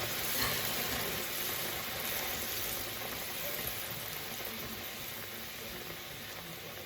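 Chicken and stock bubbling in a pan on the hob, with the heat just turned down. The bubbling grows gradually quieter.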